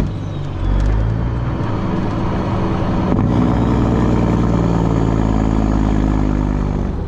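Semi truck's diesel engine running as it drives, heard from inside the cab. The engine sound drops for about half a second near the start, then rises in pitch and runs on steadily.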